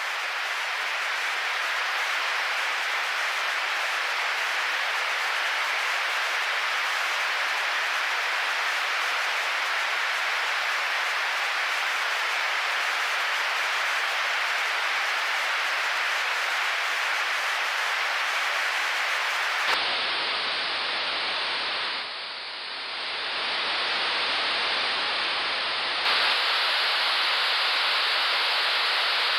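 White static noise in the style of a detuned TV, a steady gritty hiss lightly shaped with an analog-style texture. About two-thirds of the way through its tone changes abruptly, dips briefly in level, then shifts again a few seconds later.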